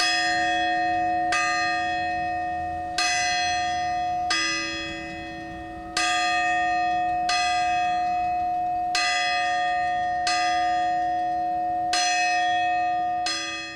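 A fixed church tower bell struck by a hammer rather than swung, ringing with ten strokes. The strokes fall in pairs about a second and a half apart, a new pair every three seconds, and each stroke rings on and slowly fades until the next. It is the larger of two tower bells, the smaller one's hammer not working.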